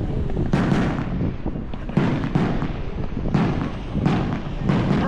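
A fireworks display with repeated sharp bangs of bursting shells, often in close pairs, coming about once a second over a continuous low rumble.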